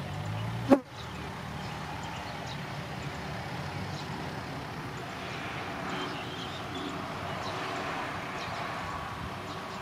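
Small dump trucks' diesel engines running steadily while the trucks move loads of soil. There is a single sharp pop about a second in.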